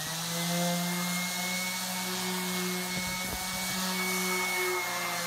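Ridgid random orbit sander running steadily on PurpleHeart wood, its motor whine holding a constant pitch over the hiss of the pad on the surface, with a few low knocks about halfway through.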